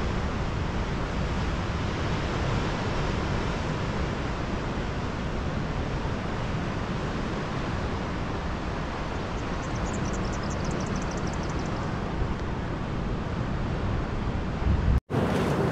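Wind buffeting the microphone over the steady wash of surf on a rocky coastline. About ten seconds in there is a short run of rapid, high chirps, and near the end the sound drops out for an instant.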